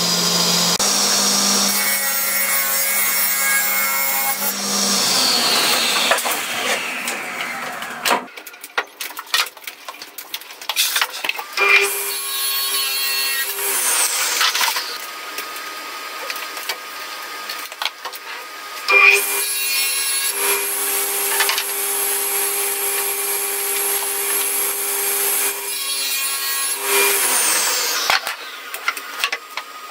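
Table saw running and cutting a board three times, winding down with a falling whine after each cut.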